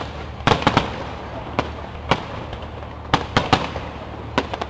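Aerial firework shells bursting overhead: about a dozen sharp bangs at uneven intervals, several coming in quick clusters of two or three.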